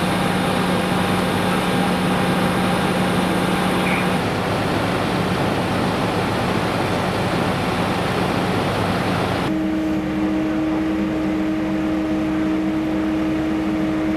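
Steady vehicle engine noise with a constant hum, most likely emergency vehicles running at the scene. The sound changes abruptly about four seconds in and again about halfway through.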